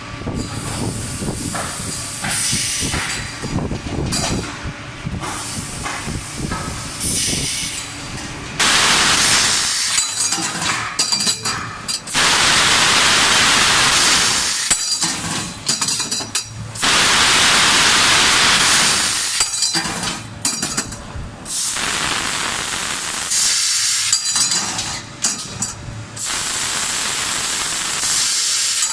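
Laser pipe-cutting machine cutting a thin-walled welded pipe. At first there is low mechanical rumbling and clinking. From about nine seconds in comes a series of loud hissing bursts from the cutting head's assist-gas jet, each two to three seconds long, with metallic clinks and clatter between them as the chuck turns the pipe.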